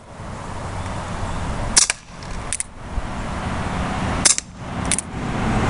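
Colt Single Action Army CO2 BB revolver firing: four sharp cracks in two pairs, about two and a half seconds apart, the first of each pair the louder. The shots are among the last from a nearly spent CO2 cartridge, which the shooter says were coming out really weak.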